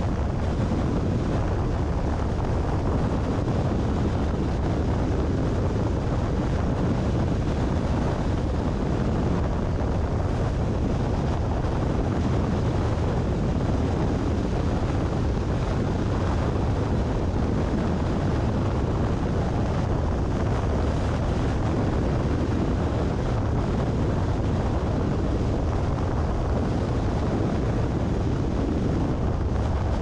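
Steady wind noise on the microphone mixed with the tyre and road noise of a car cruising at about 100 km/h in strong wind. It is an even, low-heavy rush with no changes.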